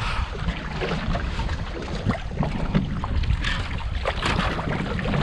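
Wind buffeting the microphone and water moving around a small fishing boat at sea, a steady low rumble with a few light knocks scattered through it.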